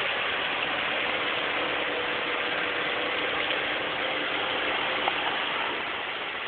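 Mazda Miata four-cylinder engine running steadily with a dense mechanical knocking clatter, the sign of rod knock from a worn connecting-rod bearing.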